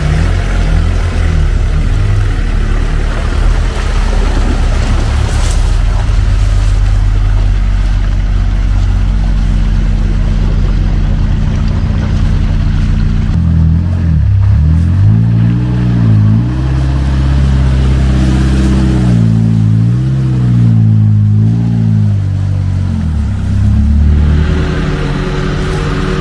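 UAZ off-roader's engine running steadily under load while wading through swamp mud, then revved up and down several times from about halfway through, its pitch rising and falling as it pushes through deep water.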